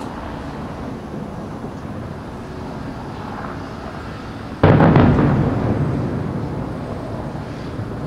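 A single aerial firework shell bursting with a loud boom a little over halfway through, its low rumble dying away over about three seconds.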